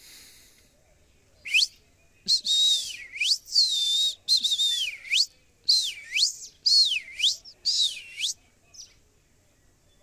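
Indian ringneck parakeet whistling: a run of about eight loud swooping whistles, each dipping and rising in pitch, starting about a second and a half in.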